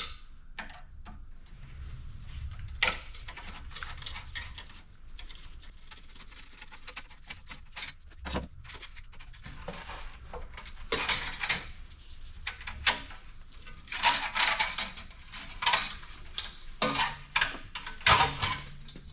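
Metal clinking and clanking, with scattered sharp knocks and scraping, as a muff pot is worked off a snowmobile's exhaust. The clatter grows busier in the second half.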